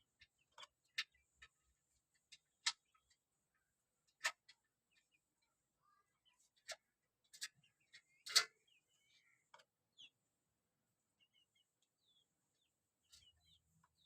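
Irregular sharp taps and clicks, about a dozen scattered through, the loudest about eight seconds in, with a few faint short chirps between them.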